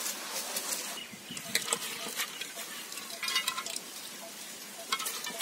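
Soaked chana dal being ground by hand in a stone aattukal: the stone pestle turning in the stone basin, scraping and crunching through the coarse dal with many irregular clicks.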